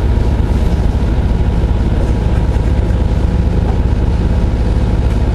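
Orion VII (07.501) diesel-electric hybrid transit bus running with a steady low drone, the engine and drive holding an even pitch.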